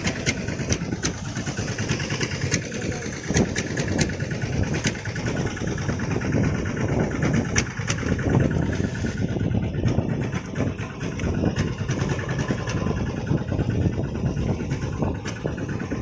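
An engine running steadily with a rough, churning sound, with many sharp clicks over it in the first few seconds.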